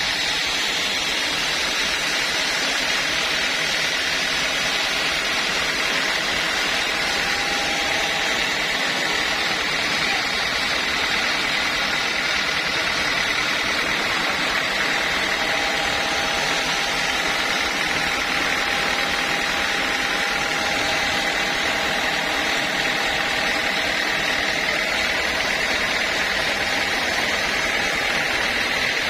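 Sawmill machinery running steadily, a loud, even noise with a faint high hum throughout.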